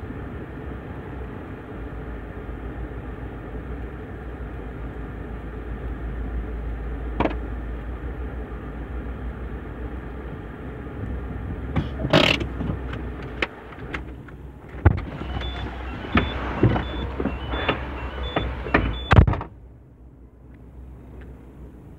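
Car engine idling, heard from inside the cabin of a Citroën as it creeps forward and stops. In the last few seconds there is a string of loud clicks and knocks with a high beep repeating about twice a second. Then the engine is switched off and the steady low hum cuts out.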